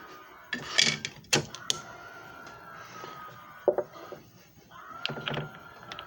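A small machine's motor whining in a thin steady tone that rises slightly and then sags, in two spells. Sharp clicks and knocks come between the spells, the loudest about a second in.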